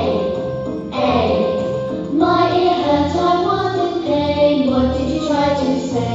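Children's phonics song for the letter sound 'ai' playing: singing over a bouncy backing track with a regular beat, the lyrics running "My ear hurt, I was in pain, ai? ai?".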